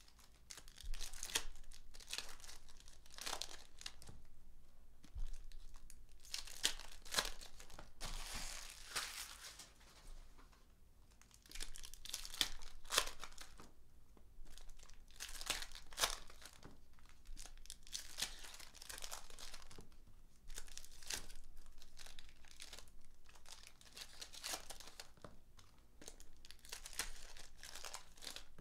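Trading-card pack wrappers crinkling and tearing open as packs are opened by hand, in repeated noisy bursts with short lulls.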